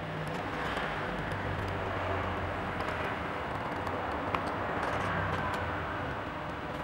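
Steady rushing background noise over a low hum, with a few faint clicks.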